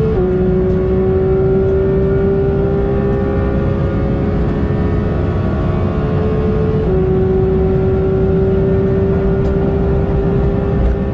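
Porsche 911 GT3's naturally aspirated flat-six at full throttle near its 9,000 rpm redline, shifting up twice at high speed. The pitch drops suddenly right at the start and again about seven seconds in, and climbs slowly after each shift as the car keeps accelerating. Steady wind and road noise run underneath.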